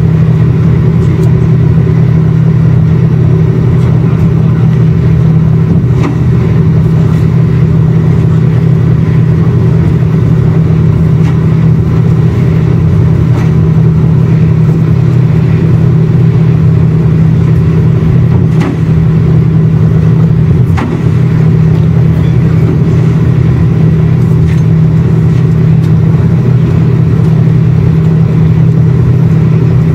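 Engines of an Austal-built high-speed ferry running at cruising speed, heard from inside the passenger cabin as a loud, steady low drone.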